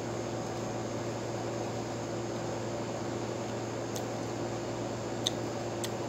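Steady background hiss with a low hum, like a fan or room noise picked up by the microphone. Three faint short clicks come in the last two seconds.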